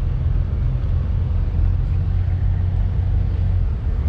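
Wind buffeting the camera's microphone: a loud, steady low rumble.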